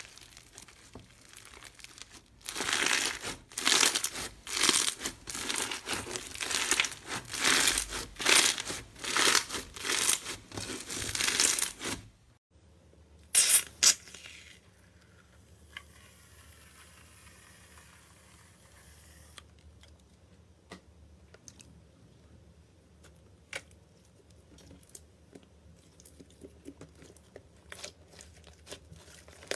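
Slime being squeezed and worked by hand: dense crackling and popping for about ten seconds, then after a break two sharp loud pops and a stretch of faint scattered clicks.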